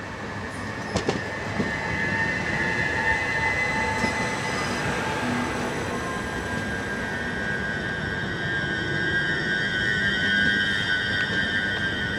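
c2c Class 357 Electrostar electric multiple unit running into the station past the platform, with a steady high-pitched whine and squeal from its running gear. A few sharp clicks come about a second in, and the sound grows louder over the first couple of seconds as the coaches draw alongside.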